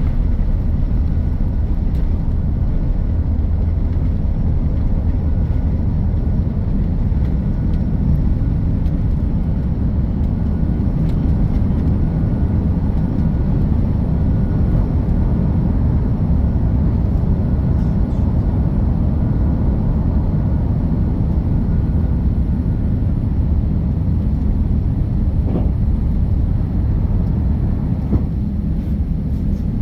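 Airliner's jet engines and airflow making a steady, loud low rumble, with a faint thin whine running under it for most of the stretch.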